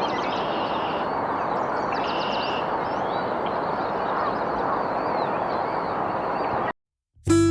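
Small birds chirping and trilling over a steady rushing noise of a bike riding along the trail. Near the end the sound cuts to a moment of silence and strummed guitar music begins.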